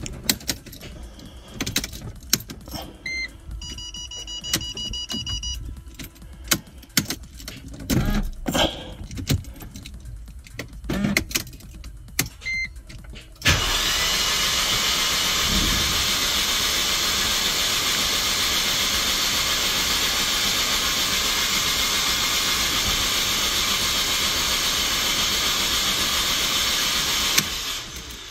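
Mercedes-Benz M271 engine turned over on its starter without firing, spark plugs out and fuel cut off: a steady, even whirr that starts suddenly about halfway in, runs about fourteen seconds and stops near the end. Before it come a few clicks and a short run of electronic beeps.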